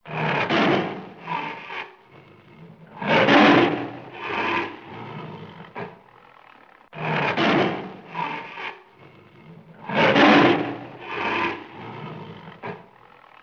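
White Bengal tiger roaring in a series of four calls about three seconds apart, each a long call followed by a shorter one.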